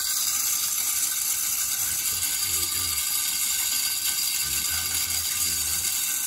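Automatic tripod game feeder running its spinner and broadcasting feed: a loud, steady whirring hiss that switches on suddenly and dies away at the end.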